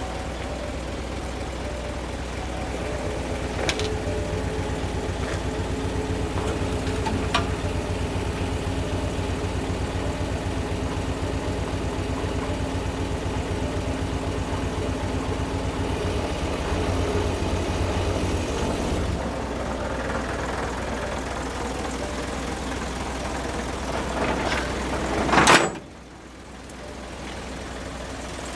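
Isuzu Giga truck's diesel engine idling steadily, with a steady hum over it that runs louder from about three seconds in until near the end of the middle. A short loud rush of noise comes near the end, after which the sound is quieter.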